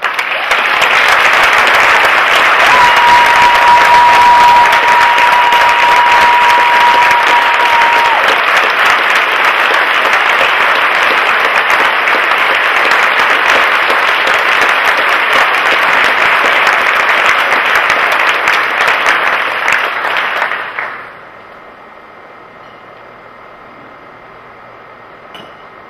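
Audience applauding, loud and steady for about twenty seconds, then dying away. A single steady high tone is held over the clapping for about five seconds, starting about three seconds in.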